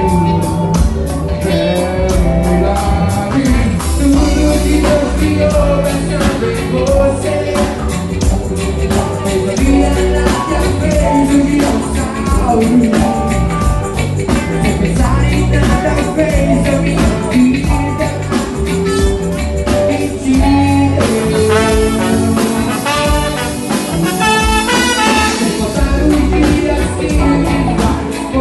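Live band music: a singer over the band, with a steady, fast percussion beat.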